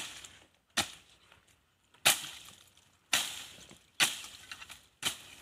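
Machete chopping into the tough, fibrous base of a wild date palm: six hard chops about a second apart, each trailing off briefly. The cutting is slow, hard going.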